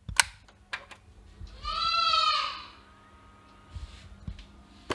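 A goat bleating once: a single call of about a second, rising and then falling in pitch, near the middle. A few faint clicks come before and after it.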